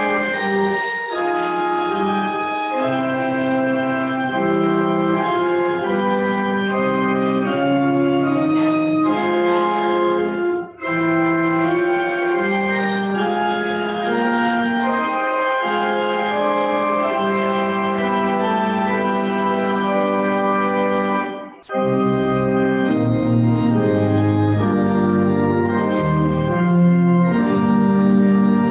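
Organ playing sustained chords that change every second or so, with two short breaks, about eleven and twenty-two seconds in.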